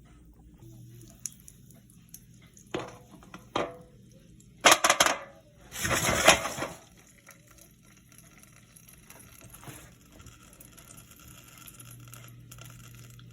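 A metal cooking pot and its lid being handled on a stovetop: two short knocks, a quick cluster of clanks about five seconds in, then a louder clatter lasting about a second. The popcorn has not started popping yet.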